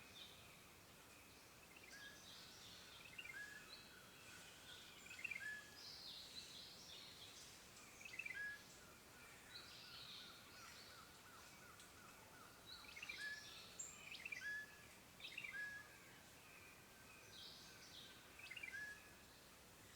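Faint forest ambience with several birds calling: short repeated chirps and quick higher trills from more than one bird, scattered throughout, over a soft steady hiss.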